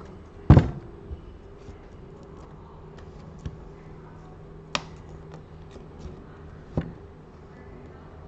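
Small repair tools knocking and clicking against an iPad's frame and screen glass while the screen is pried loose: one louder knock about half a second in, then a few sharp clicks spread apart, over a faint steady hum.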